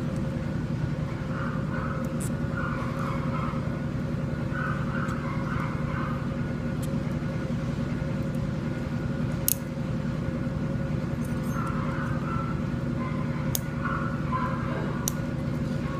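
Steady low hum of operating-room equipment, with faint muffled voices in the background and a few sharp clicks, the loudest about halfway through.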